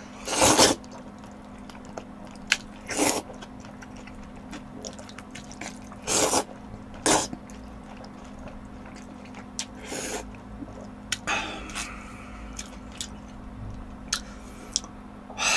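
A person slurping and chewing jjajangmyeon (black-bean-sauce noodles): about five short, loud slurps, with small clicks and chewing between them. A steady low hum underneath.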